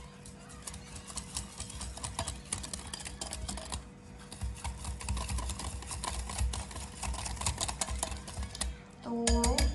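A wire whisk beating a thick ketchup-based sauce in a glass bowl, its tines clicking rapidly against the glass with duller knocks.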